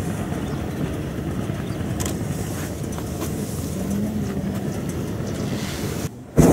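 A steady low rumbling noise. About six seconds in it drops out briefly, and at the very end a much louder roar starts: a hot-air balloon's propane burner firing.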